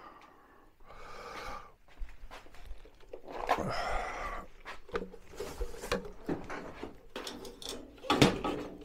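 Handling noise: rustling and scattered light knocks as a small portable air compressor with a coiled hose is picked up and lifted onto a metal shelving unit, with a cluster of sharper knocks about eight seconds in as it is set on the shelf.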